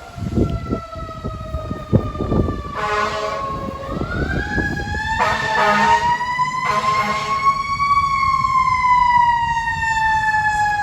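Fire truck siren wailing, its pitch slowly falling, then rising for about four seconds and falling again. Three short air-horn blasts cut in partway through, over the low rumble of the truck's engine.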